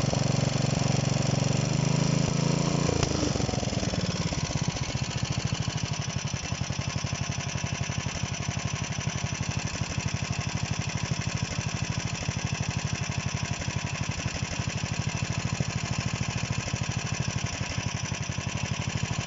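Freshly overhauled DM-1 engine running, dropping from a higher speed to a steady idle about three seconds in, with even firing pulses after that.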